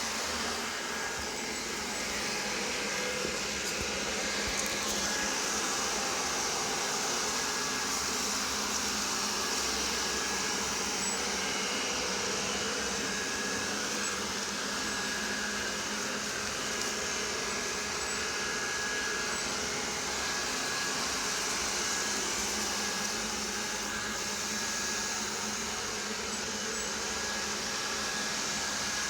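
Roborock robot vacuum running with a steady whir, a thin high squeaking beep coming and going over it. The squeak appears to come from the front wheel, dirt there being the likely cause.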